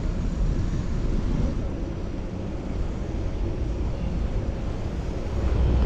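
Wind rumble on a chest-mounted action camera's microphone while riding a fixed-gear bicycle, mixed with steady road noise; it grows louder near the end.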